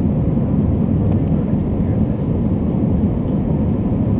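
Steady cabin roar inside an Airbus A319 climbing after takeoff: jet engine noise and rushing air, heaviest in the low end, with a faint thin whine.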